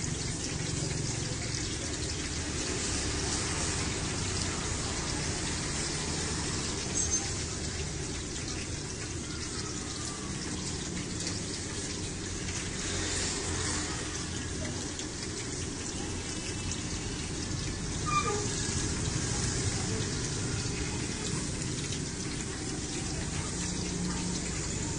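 Battered tempeh (mendoan) frying in a large wok of hot oil: a steady sizzle, with a couple of short clicks about a third of the way in and again near the end.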